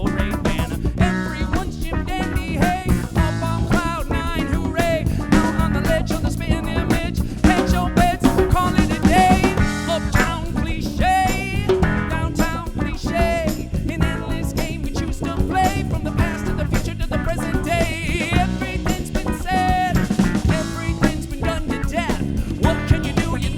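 Live band playing an instrumental break: drum kit with snare and rimshots, bass and guitar, with a lead melody line wavering in pitch on top.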